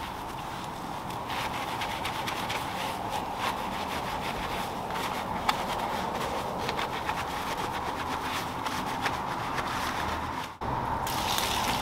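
A microfiber wash mitt scrubbing a foam-covered alloy wheel, with irregular wet rubbing strokes over a steady hum. The sound drops out suddenly near the end and comes back brighter.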